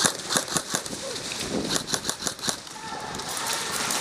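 Airsoft guns firing: a run of sharp, irregular clicking pops, with faint voices under them.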